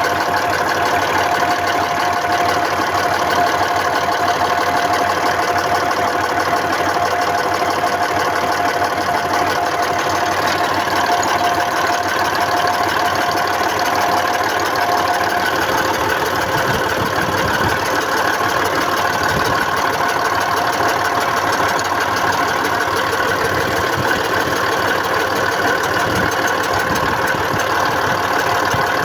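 YaMZ-236 V6 diesel engine running steadily with a knock. The owner traces it to the fuel injection: the knock goes away when a middle injector's fuel line nut is loosened, pointing to that injector or the injection pump.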